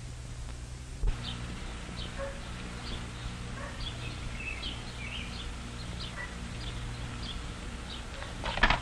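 Small birds chirping in many short, scattered calls over a steady low hum, with a thump about a second in. Near the end, a brief clatter from the car door as the officer gets into the car.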